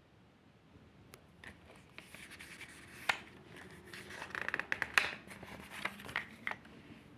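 Hands handling and opening packaging: scraping and rubbing with sharp clicks, starting faintly about a second in and loudest about five seconds in.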